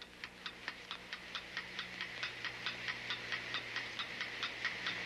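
Clock ticking quickly and evenly, about four and a half ticks a second, growing slightly louder, with a faint steady hum beneath.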